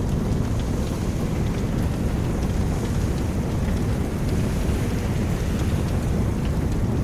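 Steady rain ambience with a deep, even rumble underneath and faint light ticks scattered through it.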